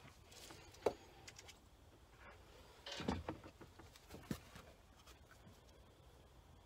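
A few light clicks and knocks of small parts being handled: about a second in, a cluster around three seconds, and another just after four seconds, with faint room noise between.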